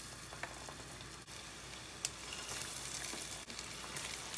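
Fish spring rolls deep-frying in hot oil, just put in: a steady sizzle with scattered sharp crackles and pops.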